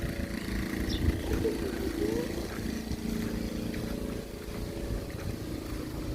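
A motor engine running steadily, with a few short rising squeaky calls over it.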